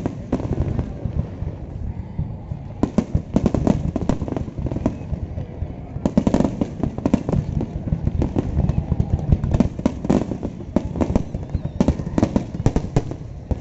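Fireworks going off in rapid, crackling volleys: many sharp bangs in dense clusters, with brief thinner spells between them.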